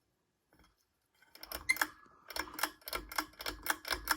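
Run of light, rapid clicking from a Hunter Stratford ceiling fan's loose blade, about four ticks a second, starting about a second and a half in over a faint low hum.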